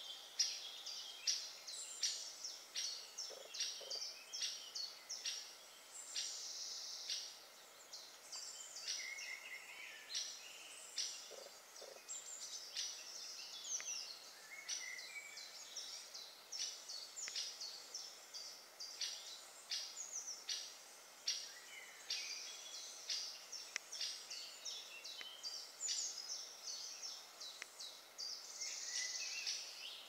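Woodland birds singing together: a busy dawn-chorus-like mix of short high chirps, whistles and trills from several birds, overlapping without a pause.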